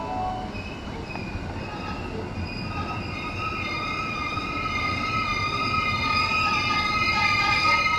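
205-series electric commuter train pulling into a station: a rumble of wheels on rail that grows louder as it nears, with a high, steady wheel and brake squeal building from about two seconds in as it slows for the platform.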